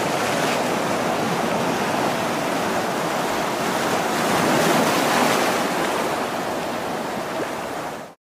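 Sea water washing against a rocky shore, mixed with wind on the microphone; a steady rushing noise that cuts off suddenly near the end.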